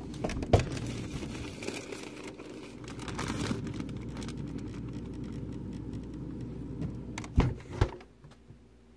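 A plastic bag holding a garment crinkles and rustles as it is pushed into a freezer, over a steady low hum. Near the end come two sharp thumps, then it goes quiet.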